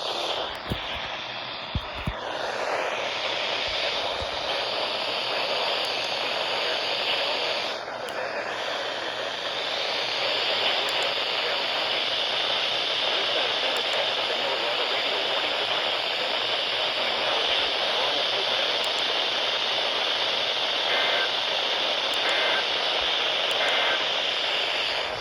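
Steady radio static: a weather radio receiver's hiss with no programme audio on the channel. A few sharp clicks come in the first two seconds, and three faint short beeps come near the end.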